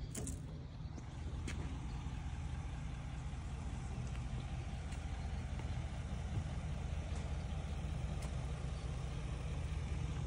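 An engine idling with a steady low rumble, with a few faint clicks and taps over it.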